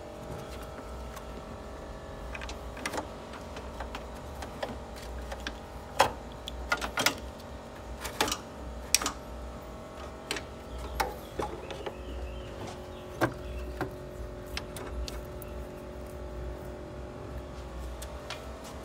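Scattered metallic clicks, taps and knocks of hands and tools on A/C hose and pipe fittings as they are fitted and tightened at the condenser, a dozen or so, irregular and sharp, over a steady background hum.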